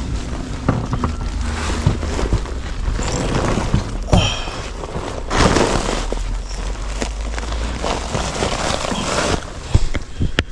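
Rustling and scraping with scattered knocks and clicks, over a steady low rumble, as a person shifts and crawls about in a cramped attic.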